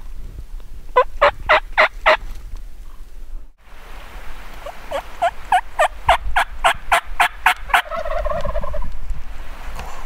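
Merriam's wild turkeys calling: an alarmed hen's sharp putts, five quick notes about a second in. After a break comes a longer run of about a dozen notes at roughly four a second, ending in a lower, rolling call near the end.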